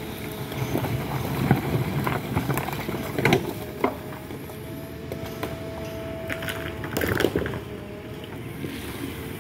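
Excavator's diesel engine running steadily, with a few sharp knocks and clatters over it.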